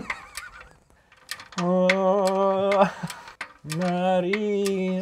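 A man's voice lets out two long, steady, strained groans, each over a second long, as he heaves on a torque wrench. Short light clicks from the wrench's ratchet are heard between and under the groans.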